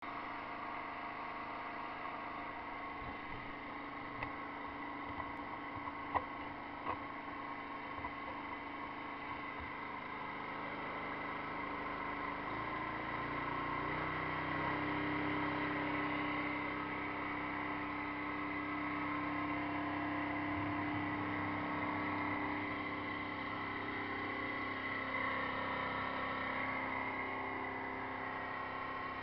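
Hot-water pressure washer (North Star Industrial Hot Box) running steadily with an engine-like hum. About halfway through its note changes and grows a little louder as a stronger low hum joins. A few light knocks sound in the first third.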